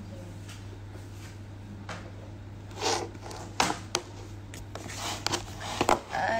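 A steady low hum, with scattered rustles and clicks of close handling starting about three seconds in and growing busier toward the end.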